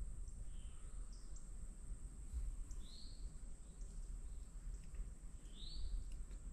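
Woodland ambience: a bird giving a short chirp every two or three seconds, over a steady high-pitched hum and a low rumble, with a few faint ticks.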